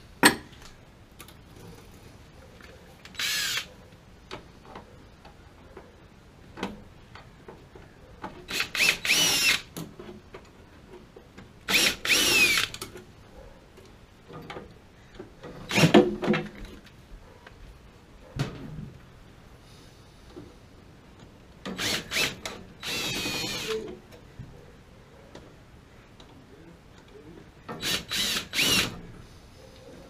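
Cordless drill-driver run in short bursts, about six times, its motor whining up and down in pitch with each pull of the trigger. A sharp knock sounds at the very start, and another strong knock comes about halfway through.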